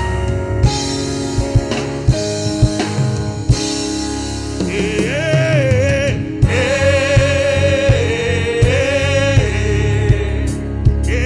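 Gospel worship music: a band with drum kit plays for a few seconds, then singers come in about four and a half seconds in, holding long, wavering notes.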